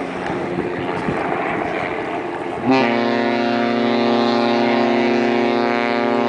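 Queen Mary 2's ship's horn starts suddenly about two and a half seconds in and is held as one long, steady, deep blast. Before it there is only wind noise on the microphone.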